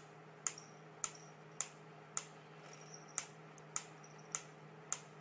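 Wooden pyramid-style mechanical metronome ticking at a steady beat, just under two evenly spaced ticks a second.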